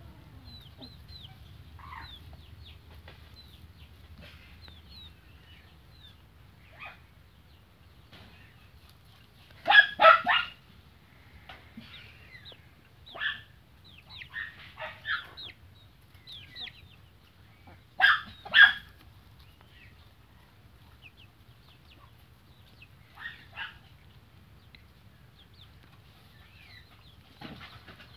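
Young chickens peeping, a steady scatter of short, high, falling cheeps, with a much louder double call twice, about ten and eighteen seconds in, and a few smaller calls between.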